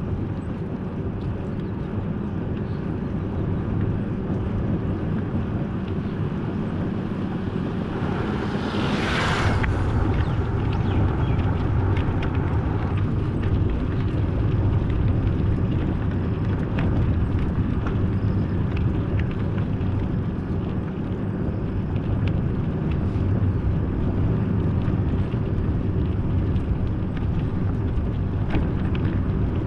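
Steady engine drone and road noise from a vehicle driving along the road, with a short rushing swell about nine seconds in.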